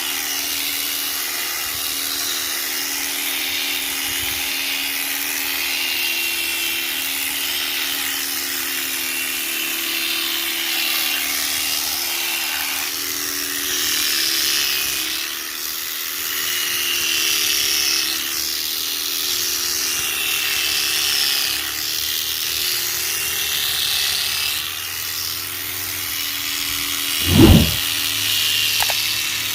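Electric sheep-shearing machine running steadily as it cuts through a ram's thick fleece, its hum wavering slightly in pitch as the blade bites, with a hiss of cutting above it. A short loud thump comes near the end.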